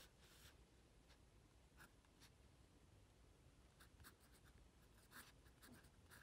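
Faint scratching of a pen on lined notebook paper, in short irregular strokes as Chinese characters are handwritten.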